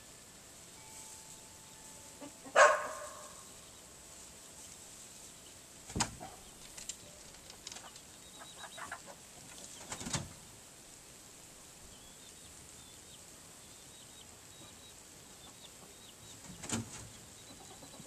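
Hens in a chicken run: a loud short call about two and a half seconds in, sharp knocks around six and ten seconds, a few light ticks, and another call near the end, with quiet between.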